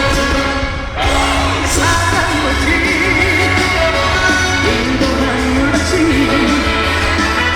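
Live trot music: a male singer's voice with wide vibrato over loud backing music with a steady, heavy bass beat. The music dips briefly about a second in, and a new sung phrase starts soon after.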